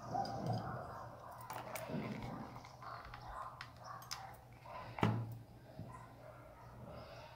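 Crafting handling noises: a glass jar, burlap and trim being handled, with small clicks and rustles over a low steady hum. A single sharp knock about five seconds in as a hot glue gun is set down on the tabletop.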